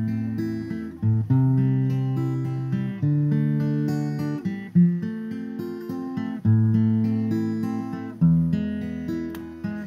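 Background music: guitar chords strummed and left to ring, with a new chord about every two seconds.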